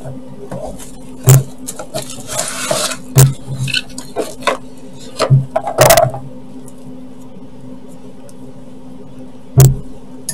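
Cardboard box and plastic wrapping of a tower CPU cooler being handled and unpacked: rustling and crinkling with a few sharp knocks, the loudest about a second in, about three seconds in and near the end. A steady low hum runs underneath.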